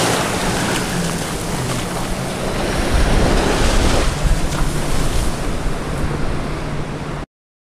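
Strong gusting wind buffeting the microphone over surf breaking on the beach, loud and rumbling, as a storm front comes in. It cuts off suddenly near the end.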